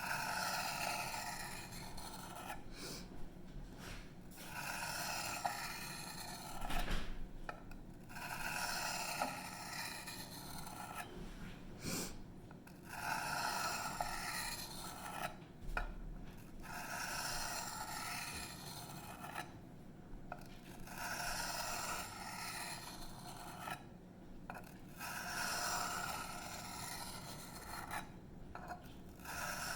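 The chisel-ground 154CM steel blade of an Emerson Mini A100 knife being stroked along a wet fine-grit whetstone. Each pass is a scraping stroke of a second or two, with short pauses between, repeating about every two seconds.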